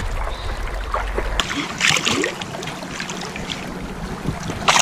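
Creek water splashing around a landing net held in the current as a netted trout is handled, with the stream running underneath. Louder splashes come about two seconds in and again near the end.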